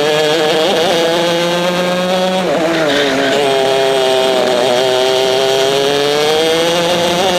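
Two-stroke racing kart engine heard onboard under load. Its pitch drops sharply about two and a half seconds in as the kart slows for a corner, then climbs steadily as it accelerates out.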